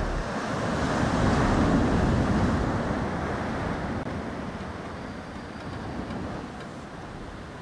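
Ocean surf: a wave breaking and washing up the beach, swelling to its loudest a second or two in, then slowly fading as it draws back.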